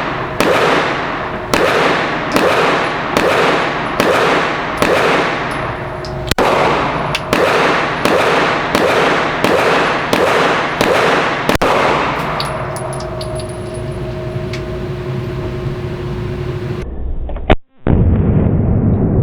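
A steady series of single gunshots, roughly one to two a second, each ringing out in a reverberant indoor shooting range. The shots stop about two-thirds of the way through, and a louder, low rumble comes in near the end after a brief dropout.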